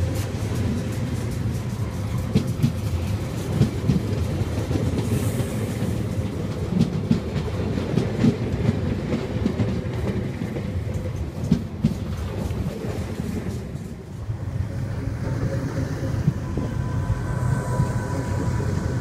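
SNCF Z 5300 stainless-steel electric multiple unit rolling along the platform. Its wheels clack over the rail joints over a steady low rumble and a faint even hum.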